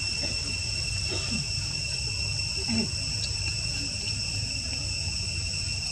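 Insects droning steadily in several even high tones, over a steady low rumble, with a few faint short sounds about one and three seconds in.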